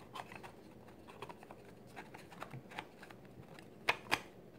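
Light taps and clicks of laser-cut MDF pieces being pressed by hand and seated into their slots, with two sharper clicks near the end.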